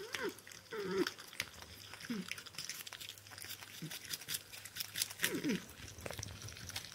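A North American porcupine making short whining calls that fall in pitch, about five of them, the last few bunched together near the end. Behind them are the small clicks and crunches of chewing food.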